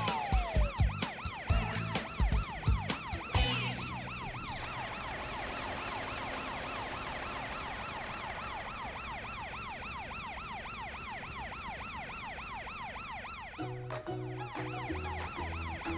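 Cartoon emergency-vehicle siren wailing in a fast, repeating up-and-down warble. It comes in about three seconds in, over background music with a beat, and the music comes forward again near the end.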